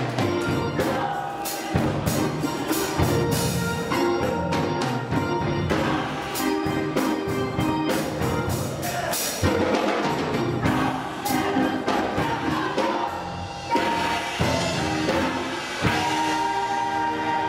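Gospel choir singing with percussion keeping a steady beat. About sixteen seconds in, the music settles into a held chord.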